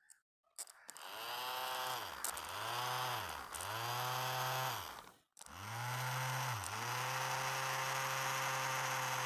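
Motorcycle electric self-starter motor spinning free off a 12-volt battery: a steady whirring whine that slows and picks up again twice. It stops about five seconds in, then starts again and runs steadily.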